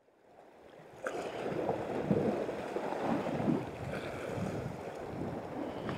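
Strong sea wind buffeting the microphone over the wash of choppy sea on the rocks, a rough, uneven rush that comes in suddenly after about a second of near silence.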